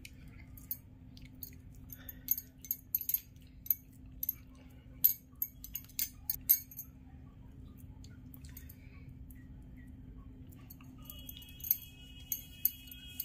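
Light, irregular clinks and taps as a steel spoon scoops potato stuffing into a hand-held cup of spinach paratha dough. They come thickly at first and thin out after about seven seconds, over a steady low hum.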